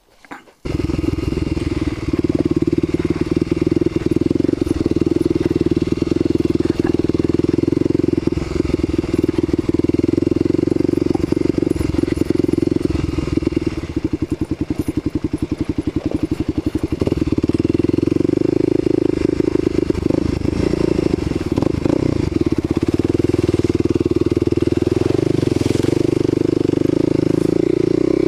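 Kawasaki KLX250SF single-cylinder four-stroke engine, fitted with a 330cc bore kit and a Muzzy exhaust, running under light throttle as the bike rides slowly over a rough dirt trail. It comes in about half a second in, eases off to a quieter, pulsing note for a few seconds midway, then pulls again.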